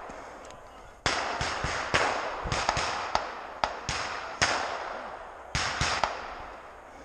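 Rifle fire: about a dozen sharp shots at irregular intervals, several coming in quick succession, each trailing off in a long echo among the trees. There is a short lull a little after halfway.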